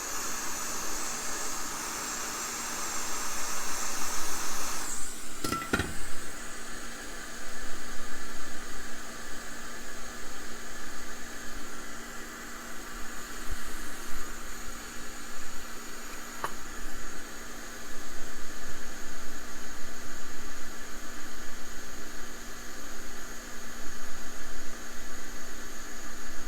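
Steady hiss of air blown by a small fan, swelling and easing in level, with a sharp click about six seconds in.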